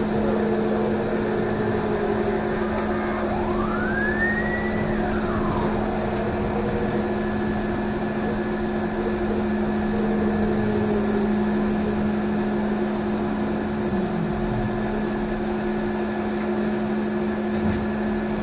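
Inside a moving trolleybus: a steady electrical hum over road noise. A few seconds in, one whine rises and falls back, and around the middle a lower whine falls away.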